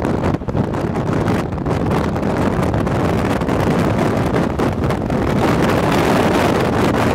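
Steady rushing of wind on the microphone over the running noise of a moving vehicle.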